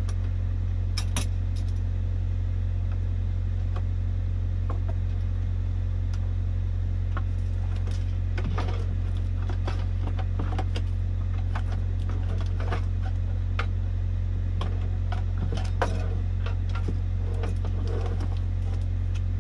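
Scattered small metallic clicks and rattles of CB radio parts and mounting hardware being handled, over a steady low hum in the truck cab. The clicks come thicker in the middle stretch.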